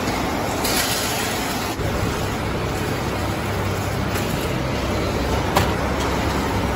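Packaging-line machinery in an electrode factory running steadily: a constant mechanical noise, with a low hum that comes in about two seconds in and a single sharp click late on.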